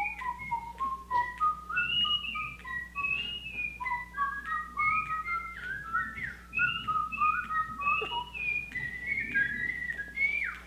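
A tune whistled into a microphone: a single clear tone moving quickly from note to note, with short slides up and down between them.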